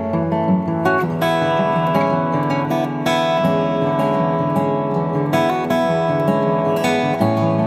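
Solo acoustic guitar, a Domenico Bertoletti DBL640S, played with the fingers: a melody of ringing notes over chords, with a fresh pluck every second or two.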